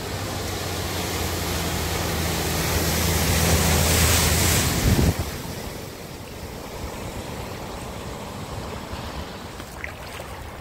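A car driving fast through deep floodwater: the rush and splash of its bow wave and spray, with the engine's low hum under it, builds to a loud peak as it passes about five seconds in, then drops suddenly to a quieter, steady wash of water.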